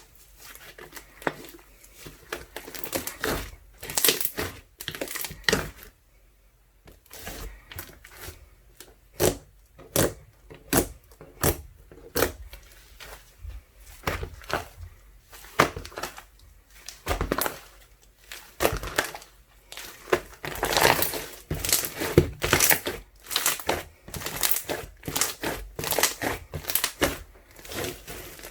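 A water-jelly slime, made from ice slime mixed with soothing gel, being squished and pressed by hand, giving dense, irregular crackling pops and clicks with a short lull about six seconds in.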